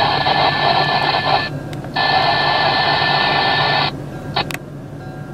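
Radio scanner on the railroad channel: two static-filled transmissions of about two seconds each that switch on and off abruptly, then a short squelch burst near the end.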